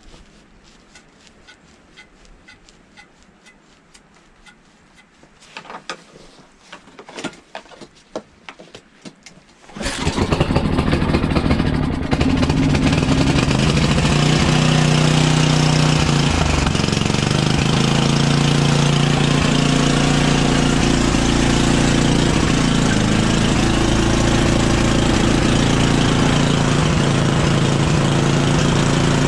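A few clicks and knocks, then about ten seconds in a snowblower engine starts and keeps running steadily at a loud, even pitch that shifts a little.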